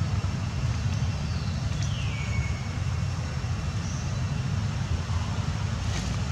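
Steady low outdoor rumble, with one high call sliding down in pitch about two seconds in.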